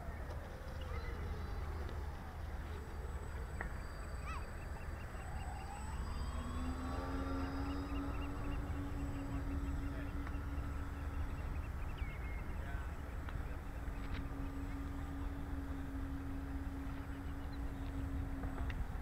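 Radio-controlled scale model Short S.23 Empire flying boat's motors and propellers droning in flight. The pitch rises about six seconds in and then holds steady.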